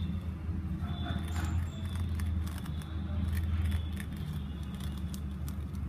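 A wooden rolling pin rolled and pressed over roasted cumin seeds on a ceramic plate, coarsely crushing them, with scattered small clicks and crackles. A steady low hum runs under it.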